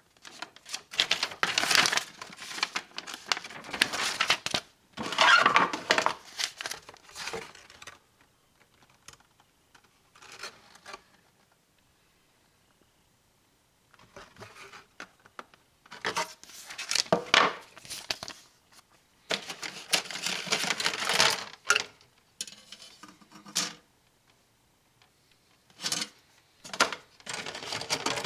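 Paper and plastic packaging of a Bandai HG 1/144 GM model kit being handled: the instruction manual, box and plastic-bagged parts runners rustling and crinkling in several bursts, with short pauses between them.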